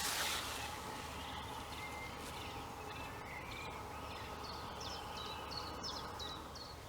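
Quiet outdoor ambience with a brief rustle right at the start. Then a quick run of short, high bird chirps in the second half.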